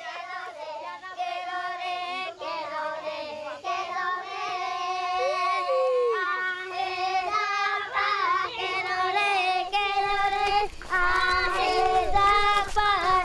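High voices, as of children, singing a wavering chant with long held notes. About three-quarters of the way through, a low rumble joins underneath.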